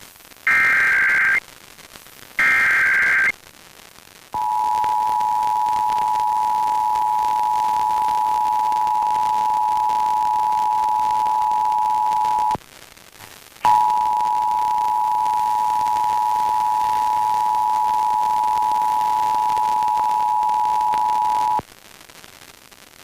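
Emergency Alert System transmission over FM radio. It opens with two short screeching bursts of the digital SAME header data. About four seconds in, the EAS attention signal starts: a steady two-tone sound at 853 and 960 Hz. It sounds for about eight seconds, breaks off for about a second, then sounds again for about eight seconds.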